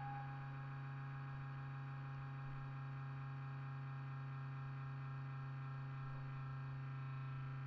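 Steady electrical hum and buzz: a low mains-type hum with fainter steady higher tones, the background noise of the recording chain. The last held note of the intro music fades out just after the start.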